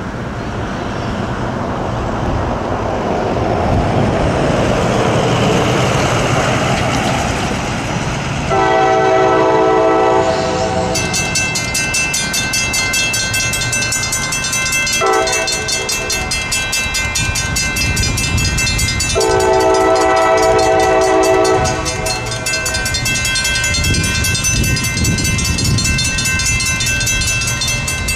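CSX freight locomotive's horn sounding over the rumble of the approaching train: a long blast about a third of the way in, a brief one, then another long blast. A high, rapidly pulsing ringing runs through the second half.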